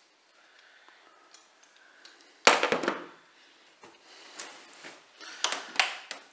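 Black plastic bed-rail trim strip being handled and pressed down onto its clips: a loud clatter about two and a half seconds in, then two shorter bursts of rubbing and clicking near the end.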